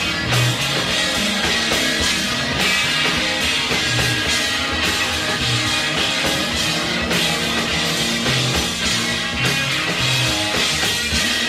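Instrumental stretch of a loud, noisy rock song by a band, electric guitar and a drum kit playing densely together with no singing.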